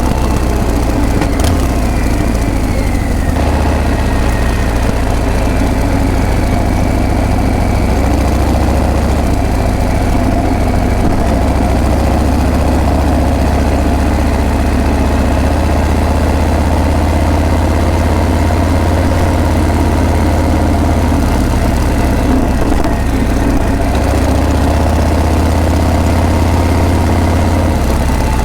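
Harley-Davidson Breakout's V-twin engine running steadily with a deep exhaust note. A faint high tone falls in pitch about two seconds in.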